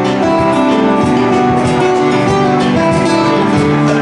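Nylon-string acoustic guitar played solo, plucked notes and chords ringing over one another in a steady rhythm.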